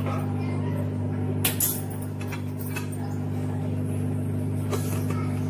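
Metal ladle clinking against a pressure cooker as the khichdi is stirred, then the cooker lid being handled and set on with a light metallic knock, over a steady low hum.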